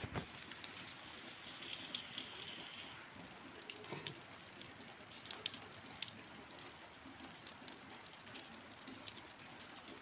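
Rain falling steadily, an even hiss dotted with scattered sharp ticks of drops.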